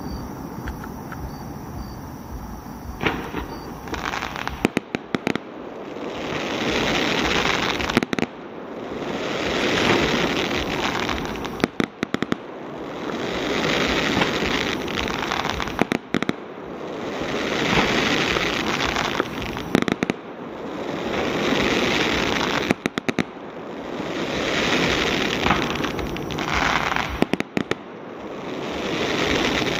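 Fireworks finale: after a quieter first few seconds, clusters of sharp bangs come about every four seconds. Between them, swells of dense crackling build up and cut off as the gold and green crackle effects burn out.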